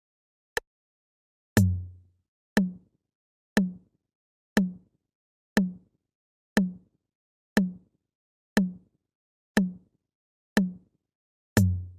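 Countdown timer sound effect: a sharp tick once a second. From about a second and a half in, each tick comes with a deep electronic thump, and the first and last of these land with a heavier boom.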